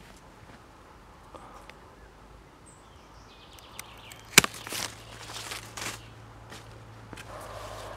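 Pruning shears cutting through a thin rootstock stem: one sharp snap about halfway through, followed by a few softer snips and rustles.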